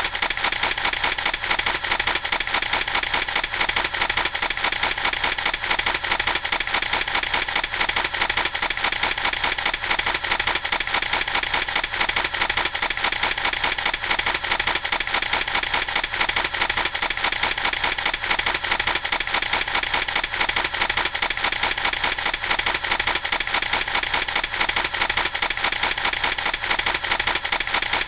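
Many camera shutters firing rapidly and overlapping in a dense, continuous barrage of clicks, like a crowd of paparazzi photographing at once.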